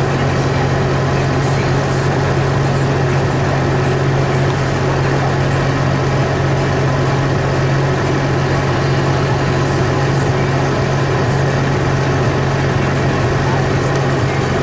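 New Holland T7-210 tractor's six-cylinder diesel engine idling steadily at about 910 rpm with the tractor parked, heard from inside the cab as a constant low hum.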